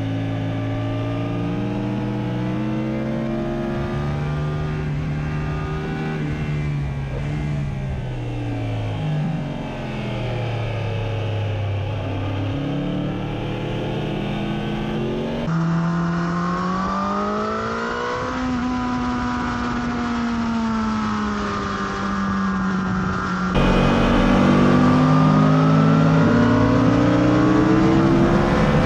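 Sport motorcycle engines at track speed, heard from onboard: the revs climb hard and drop again and again through gear changes and corners. The sound jumps louder about three-quarters of the way through.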